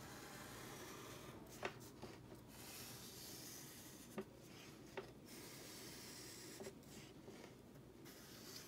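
Faint scratching of a marker tip drawn along construction paper as straight lines are traced, with a few light clicks.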